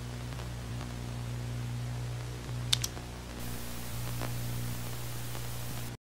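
Steady electrical hum under a hiss of video static, with two sharp clicks near the middle, after which the hiss turns brighter. Everything cuts off abruptly about six seconds in, as the screen powers off to black.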